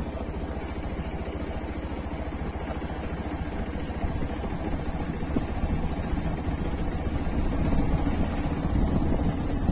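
Engine of a moving road vehicle running steadily at cruising speed, with road and wind noise on the microphone, getting a little louder toward the end.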